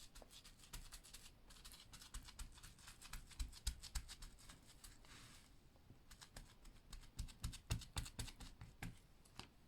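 Hands working small plastic and paper craft pieces: a quick, uneven run of light clicks and taps, with a brief rustle about halfway through.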